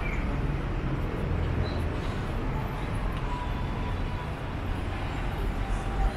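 Street traffic: a motor vehicle's engine running close by as a steady low rumble over general city-street noise.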